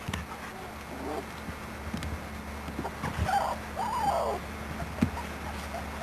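Three-week-old puppies whimpering softly: a few short whines that rise and fall in pitch, the strongest two about three and four seconds in, with a few light knocks over a low steady hum.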